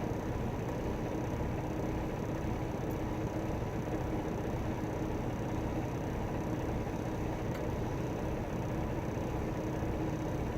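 Semi truck's diesel engine idling steadily while the truck sits stopped on the scale.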